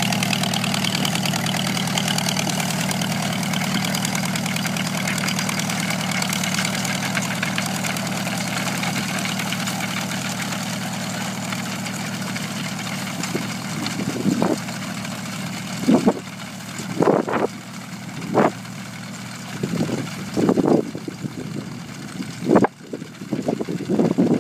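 An old tractor engine running steadily as it pulls a grain binder, the sound slowly fading as the rig moves away. From about two-thirds of the way through, gusts of wind buffet the microphone.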